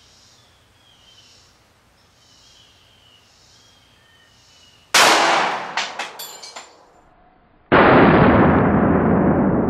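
A .40 S&W pistol shot from a Glock 23 about five seconds in: one sharp crack, with its echo trailing off over about a second and a half. Near the end comes a slowed-down replay of the shot, a duller, longer blast that dies away slowly. Faint bird chirps can be heard beforehand.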